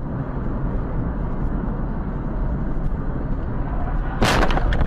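Steady road and engine rumble heard from inside a car on a wet road, then a sudden loud crash about four seconds in as the car collides.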